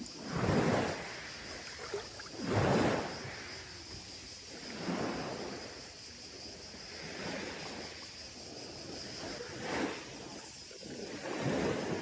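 Small sea waves washing onto a beach, one swell of surf about every two seconds.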